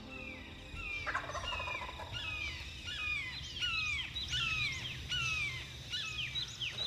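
Wild turkey gobbling: a rapid string of repeated gobbles that starts about a second in, with faint small-bird chips in the background.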